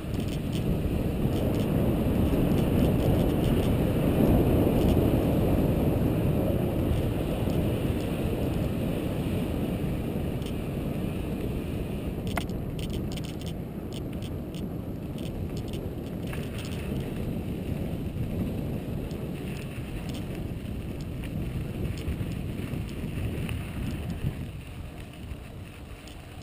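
Wind buffeting the microphone and the tyres of a Santa Cruz Tallboy LT mountain bike rolling over a dirt trail, loudest in the first few seconds and easing off. A few sharp clicks and rattles come about halfway through.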